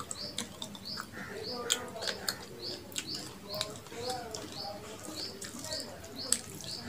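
Close-up eating sounds of rice and curry eaten by hand: fingers mixing rice on a steel plate, chewing and wet lip smacks, with several sharp smacks. A steady series of short high chirps repeats in the background.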